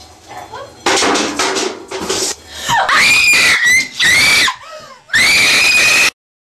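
A young woman screaming in terror: a loud noisy burst, then three long high-pitched screams, the last the longest, cut off suddenly.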